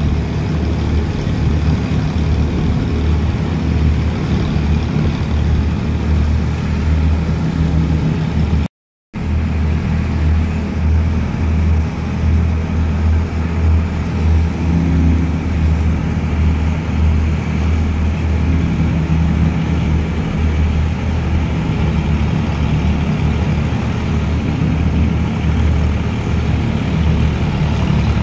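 A tractor-driven wheat thresher running steadily: the tractor engine drones under load as it drives the threshing drum and straw blower. The sound cuts out for a moment about nine seconds in.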